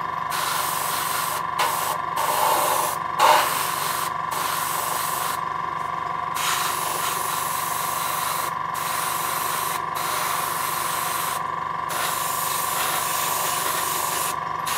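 Airbrush hissing as it sprays paint, in bursts that stop and start again many times as the trigger is released and pressed, over a cheap AS186 airbrush compressor running steadily. The compressor gives a constant whine and a rapid low chug, likened to a Model T Ford.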